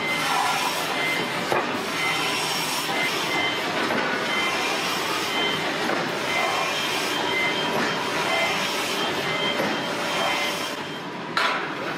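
Steady machinery din of a steel forge shop, with a heavy forging press and forging manipulator working hot steel, faint intermittent whining tones over it and a sharp clank near the end.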